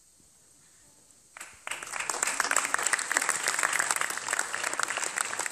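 Near silence for about a second and a half, then an audience starts applauding, many people clapping at once, and the applause keeps going.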